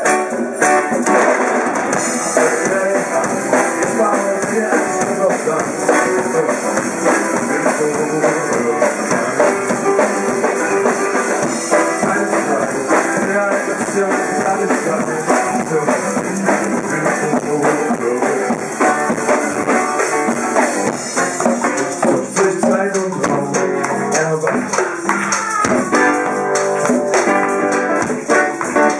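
Live band playing percussion-heavy music: congas, drum kit and shakers keep a busy rhythm over acoustic guitar, with the strummed guitar coming forward near the end.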